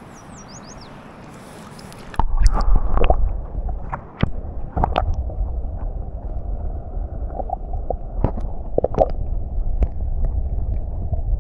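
River water heard through a camera dipped underwater: a muffled low rumble with gurgling and scattered sharp clicks and knocks. It starts suddenly about two seconds in, after a faint open-air river hiss.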